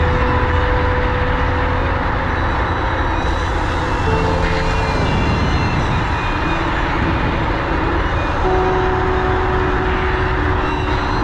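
Dualtron Thunder electric scooter on the move: a steady rumble of wind and road noise, with faint whining tones that hold a pitch for a second or two and then shift to another.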